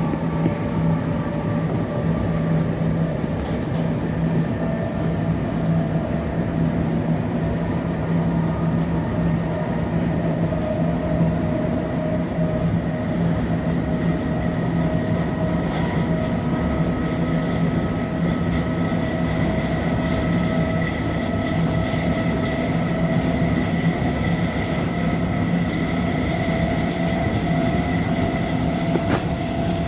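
Class 707 electric multiple unit under way, heard from inside the carriage: a steady rumble of wheels on rail with the whine of the traction motors and inverters, its pitch climbing slowly as the train picks up speed.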